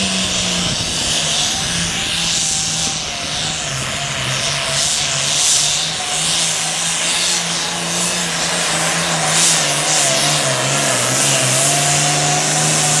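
A turbocharged diesel Super Farm pulling tractor running hard at high revs, a steady engine note under a loud hiss and whine, with the pitch sagging a little before climbing again and the sound dropping away sharply at the very end.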